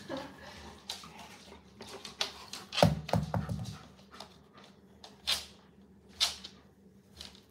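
Long-haired German Shepherd breathing and huffing close to the microphone: a few short breathy puffs, the loudest about three seconds in.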